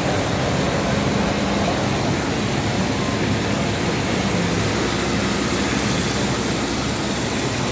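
Steady rushing noise with a low hum underneath, even throughout, like ventilation or running machinery.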